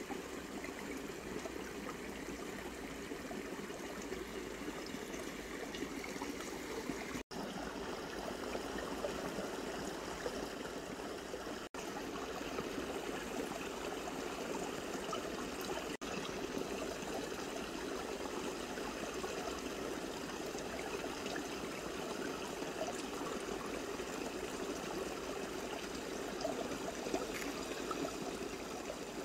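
Steady rush of flowing stream water, cutting out very briefly three times.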